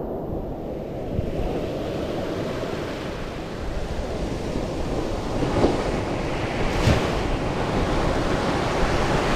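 Small waves breaking and washing up a sandy beach, the surf swelling and hissing as the foam runs in, with wind buffeting the microphone. A short knock sounds about two-thirds of the way through.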